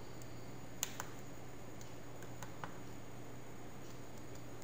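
A few faint, sharp clicks and taps, two about a second in and two more about two and a half seconds in, from digits being written by hand on screen, over a steady low electrical hum.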